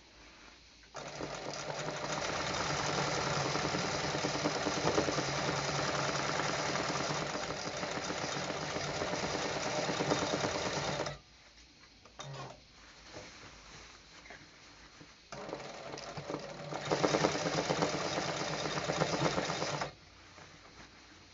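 Embroidery sewing machine stitching in two long runs, from about a second in to about eleven seconds and again from about fifteen seconds until shortly before the end, with a pause between. The second run gets louder and faster part-way through.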